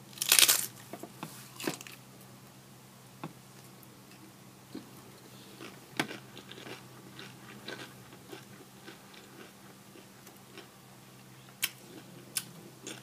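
A person biting into and chewing crunchy fried corn tortillas: one loud crunching bite about half a second in, then scattered softer crunches and mouth sounds of chewing.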